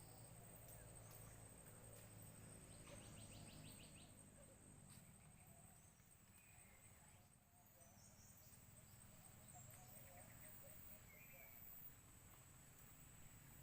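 Near silence: faint outdoor ambience with a thin steady high-pitched whine, a short rapid trill about three seconds in and a few faint chirps.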